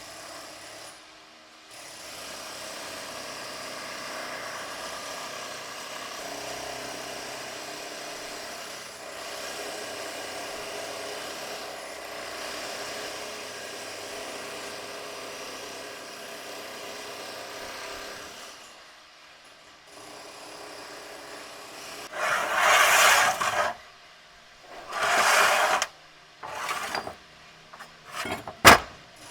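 Workshop tool work: a steady tool noise for about sixteen seconds, then two loud bursts of a couple of seconds each and a few short ones near the end.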